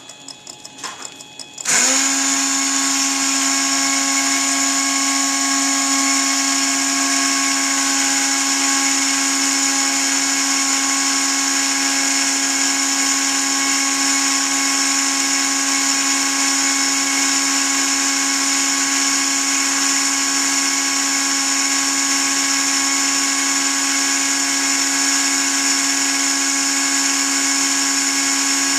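Rotary tool driving a homemade belt-driven tool post grinder spindle with a diamond burr switches on about two seconds in, spins up within a moment, then runs at constant speed with a loud, steady high-pitched whine.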